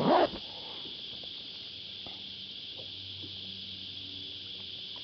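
Cicadas buzzing in a steady, continuous high-pitched drone, with a short loud thump right at the start.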